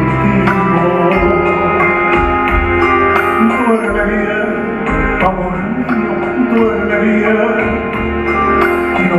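A man singing a slow ballad into a microphone over live backing music with a steady bass line.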